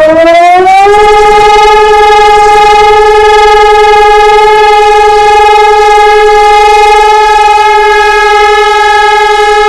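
Electronic civil-defence siren (SES 500) sounding a siren test: a loud, harmonic-rich tone that rises in pitch during the first second, then holds one steady pitch.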